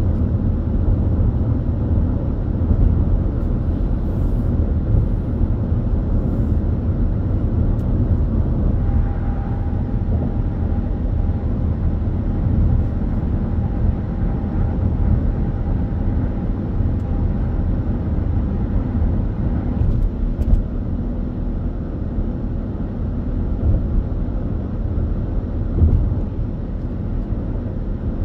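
A car travelling at expressway speed: steady tyre and road rumble with engine drone, unbroken throughout.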